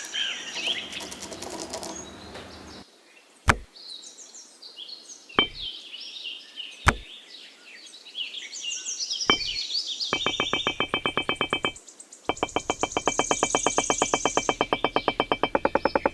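Birds chirping, with four sharp knocks spread a second or two apart, then fast rhythmic background music that comes in about two thirds of the way through.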